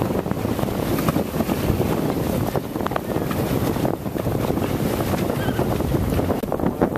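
Wind buffeting the microphone over the steady wash of choppy sea water around a sailboat under way.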